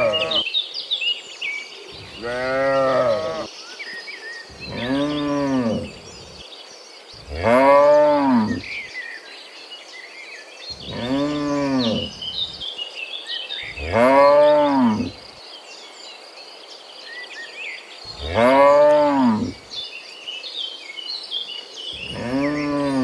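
Cattle mooing over and over, about eight long moos of a second and a half each, every one rising and then falling in pitch, one every two to four seconds. A steady high insect buzz and small bird chirps go on behind them.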